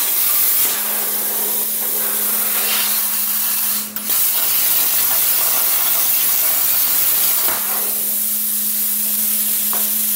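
Hand-held plasma torch cutting steel plate with a loud, steady hiss, finishing a cut that the CNC plasma table left incomplete. The arc stops briefly about four seconds in, then starts again and keeps cutting.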